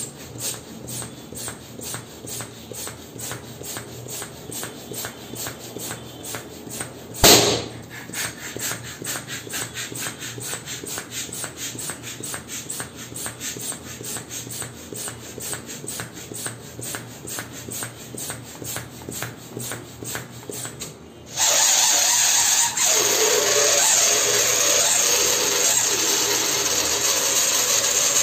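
Latex balloons being handled, with a fast run of light ticks and one loud balloon pop about seven seconds in. From about 21 seconds in, a much louder steady machine-like noise sets in.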